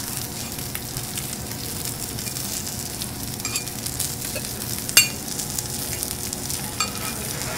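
Food sizzling steadily on a teppanyaki iron griddle while it is stirred and turned with metal spatulas, with scattered light clicks and scrapes. One sharp clink about five seconds in is the loudest sound.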